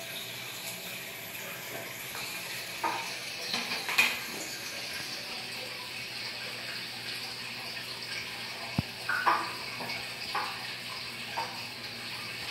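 Aquarium filter water splashing and trickling steadily into the tank. A few short, sharper splashes and knocks stand out, around four seconds in and again between about nine and eleven seconds.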